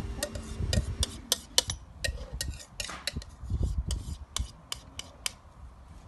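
Spoon scraping and clicking against a plastic bowl as thick white paint is scraped out into a jar, in irregular sharp clicks a few times a second.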